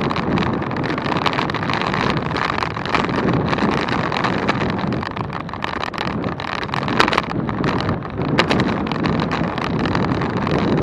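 Wind rushing over the microphone while riding a bicycle, a steady dense roar with a couple of sharp clicks a little past the middle.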